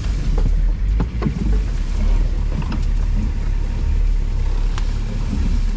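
Off-road 4x4's engine running with a steady low rumble as the vehicle crawls along a rough trail, with scattered knocks and clicks over it.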